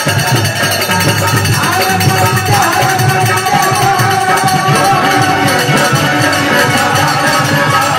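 Live Indian folk music: harmonium and Indian banjo playing over a steady shaken-rattle rhythm, with a held melodic line coming in a few seconds in.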